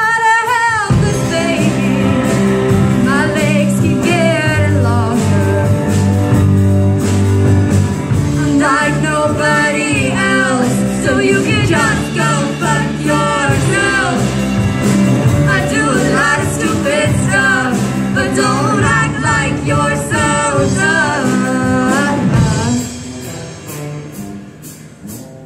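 A live rock band playing a song: singing over electric guitars, keyboards and drums. The music gets quieter for the last few seconds.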